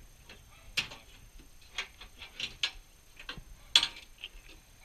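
Ratchet tie-down strap and its metal hooks clicking and clinking as a dirt bike is strapped down on a trailer: several sharp clicks at uneven intervals, the loudest near the end.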